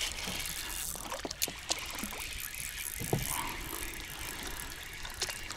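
Spinning reel being cranked to bring in a hooked fish, a steady mechanical whirr with scattered light clicks.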